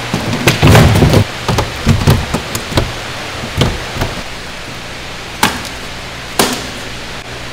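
Irregular knocks and thuds over a steady rushing noise and hum: a dense flurry in the first two seconds, scattered lighter ones after, then two sharp single knocks about a second apart near the end.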